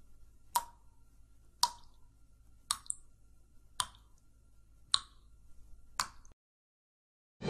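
A steady series of six sharp ticks about a second apart, each with a short falling tail. The sound cuts off abruptly near the end.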